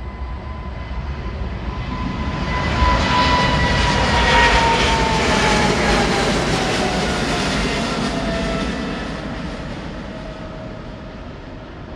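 Boeing 777-300ER's GE90 jet engines at takeoff power during the takeoff run: a loud jet roar that swells for a few seconds and then slowly fades. A high whine runs through it and slides gradually lower in pitch as the aircraft passes and moves away.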